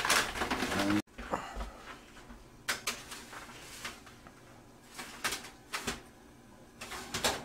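Scattered light knocks and clatters of a kitchen oven's door and metal rack being handled, half a dozen short hits over several seconds.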